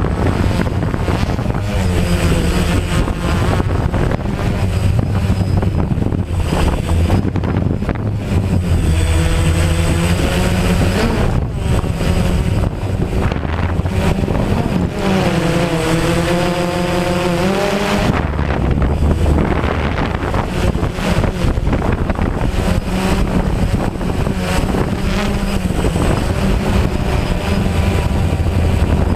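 DJI Phantom quadcopter's motors and propellers running steadily with a loud hum, their pitch rising and falling now and then as the drone works against the wind, over a rushing wind noise.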